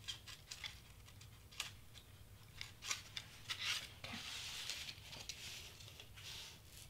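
Craft knife cutting cardstock in a series of short strokes, followed about four seconds in by a longer rustle of the cardstock pieces sliding across the cutting mat.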